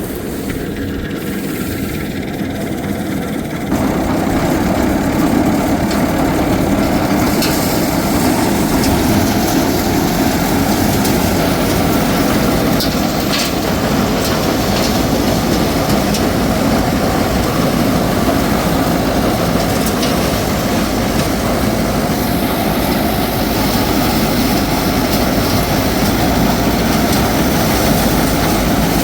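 Heavy engine running steadily, getting louder about four seconds in and then holding steady.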